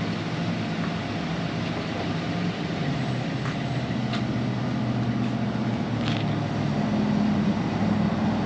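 A motor vehicle engine running, a low steady hum that grows a little louder toward the end, with a few faint clicks.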